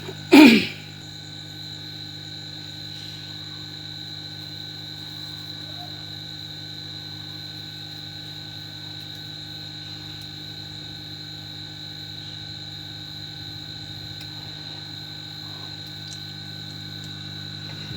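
A brief loud sound about half a second in, then a steady, unchanging hum with several fixed tones.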